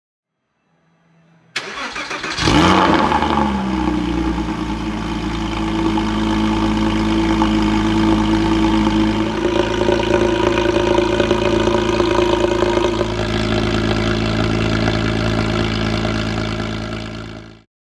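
Porsche Boxster S 987's 3.2-litre flat-six with a Capristo valved exhaust starting up: the starter cranks briefly, the engine catches with a quick rev flare that falls back over about a second, then it idles steadily. The sound cuts off suddenly near the end.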